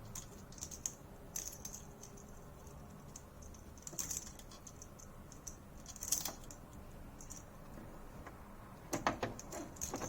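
Spanner and coffee-machine parts giving scattered light clicks and scrapes as a replacement part is twisted onto its thread, with a quick run of sharper clicks near the end.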